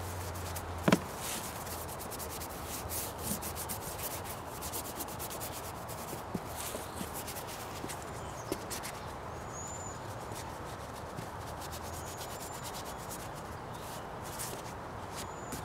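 Paintbrush scrubbing and rubbing paint across a large painting surface in many quick strokes, with one sharp knock about a second in.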